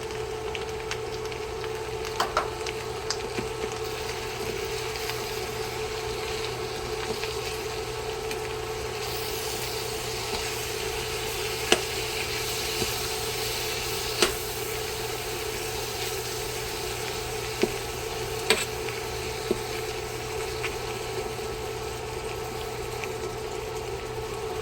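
Ground chicken with onion and bell pepper sizzling in a pan as tomato sauce is stirred in, the sizzle rising for a few seconds mid-way, with a spoon knocking against the pan now and then.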